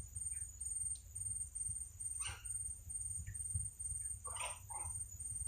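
Steady high-pitched drone of insects pulsing about twice a second, over a low rumble, with a few short chirps about two seconds in and twice more near the end.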